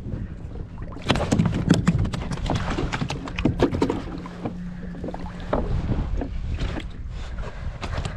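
A freshly caught speckled trout thrashing on a plastic kayak while being handled: a quick run of knocks and slaps against the hull for a few seconds, then scattered knocks, with wind rumbling on the microphone.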